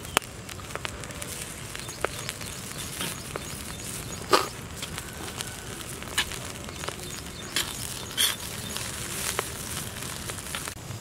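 Metal spatula scraping and clanking against a large black wok as fried rice is stirred and tossed, over a steady sizzle. The strikes come every second or two, the loudest about four seconds in.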